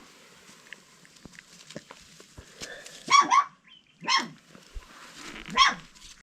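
Three-week-old puppies yelping in short, high-pitched cries: a double yelp about three seconds in, another about a second later, and one more near the end.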